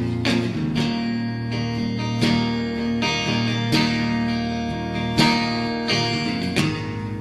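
Instrumental background music led by a plucked guitar, a new note or chord struck every second or so over held notes.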